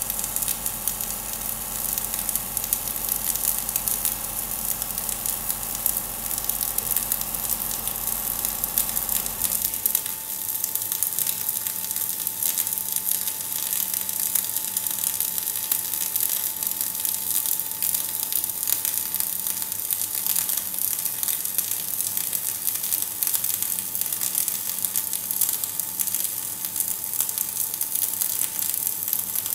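MIG welding arc crackling and sizzling steadily as a bead is run on steel. A low electrical hum underneath cuts out about a third of the way in and gives way to a steady higher whine.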